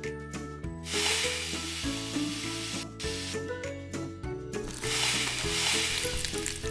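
Edible glitter being shaken onto a miniature jelly cake, heard as two stretches of dry hissing rustle, the second starting about five seconds in. Background music plays throughout.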